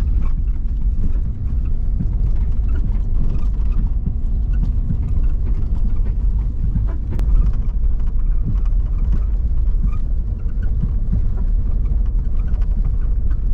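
Jeep driving slowly over a rocky dirt road: a steady low rumble of engine and tyres, with rattles and knocks as the wheels go over rocks, one sharper knock about seven seconds in.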